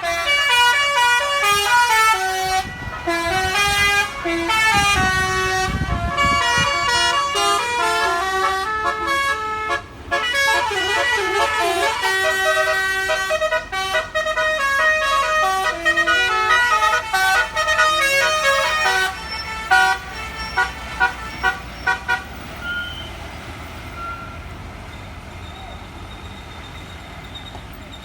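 Telolet basuri musical air horn on a bus playing a long melody of stepped notes, with a warbling passage partway through and a run of short separate toots near the end of the tune. After that the horn stops, leaving low road and engine noise.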